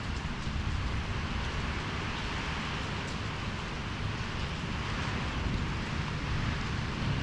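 Storm wind and rain: a steady rush of rain with wind buffeting the microphone in a low rumble.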